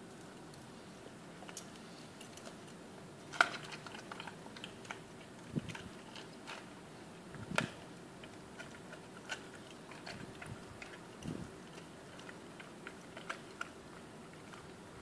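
Czechoslovakian wolfdog biting and chewing a raw whole chicken: irregular crunches and sharp cracks. The loudest crack comes about three and a half seconds in, and another about seven and a half seconds in.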